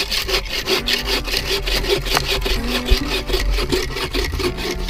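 Agawa Canyon Boreal21 folding bow saw cutting through a small snow-covered tree trunk for firewood, in rapid, even back-and-forth strokes.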